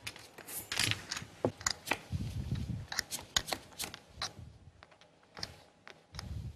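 Poker chips clicking and clattering as they are handled at the table: a run of sharp, irregular clicks, with a brief low rumble about two seconds in.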